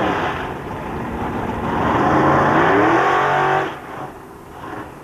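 Drag-racing car engine revved hard twice, the pitch climbing each time; the longer second rev builds and rises, then cuts off suddenly about three-quarters of the way through, with a brief blip after.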